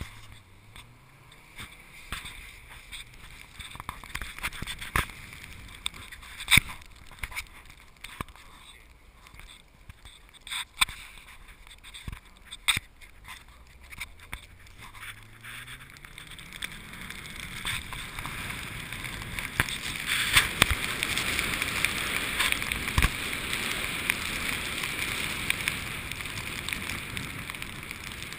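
Audi S6 driving through deep snow, heard from outside the car: the engine note rises twice, then a growing rush of tyres ploughing through snow builds and holds, with scattered sharp knocks throughout.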